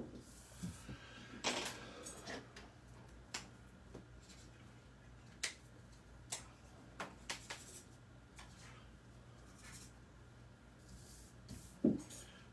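Scattered light clicks and taps of pens and pencils being handled and set down on a hard desk, with paper sliding and rustling as the drawing sheet is turned. A duller thump comes near the end.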